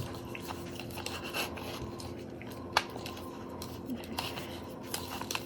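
Faint handling sounds of a Byrna SD pistol and its small magazine tool being worked by hand: light clicks and scraping, with one sharper click a little under three seconds in.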